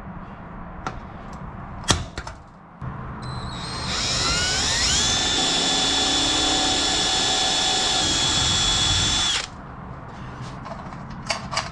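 A sharp single click of a center punch marking the hole, then a power drill boring through the aluminium wing spar: it spins up with a rising whine, runs steadily for about five seconds, and stops abruptly.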